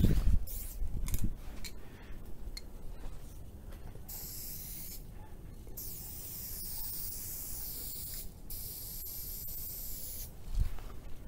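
Aerosol spray paint can hissing in several sprays of a few seconds each, with short breaks between them. Dull thumps and a few clicks come in the first second or so, and another thump comes near the end.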